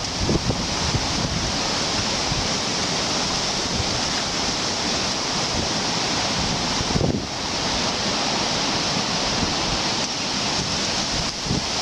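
Steady rushing of water, with wind buffeting the microphone in low gusts near the start, about seven seconds in and near the end.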